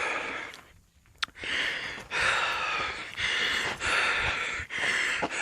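A hiker's heavy breathing close to the camera microphone: quick, rhythmic breaths in and out, about one every second, from the exertion of a steep climb. A single sharp click comes about a second in.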